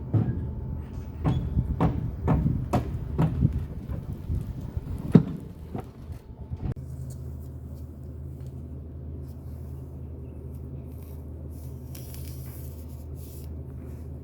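Club Car Precedent electric golf cart rolling with a rhythmic clunking from a wheel, about two knocks a second over a low rumble, the unusual sound of a broken wheel hub bearing. About seven seconds in the knocking stops, leaving a steady low hum.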